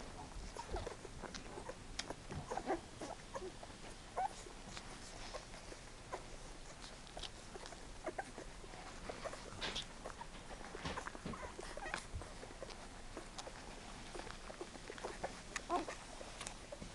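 Eleven-day-old Goldendoodle puppies nursing: faint wet sucking and smacking with scattered small squeaks, irregular throughout.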